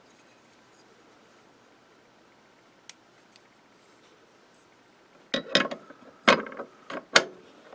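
Parts being handled on a workbench: a single light snap about three seconds in, then a quick cluster of five or so sharp knocks and clatters as the AR-15 charging handle is set down and seated in the bench block.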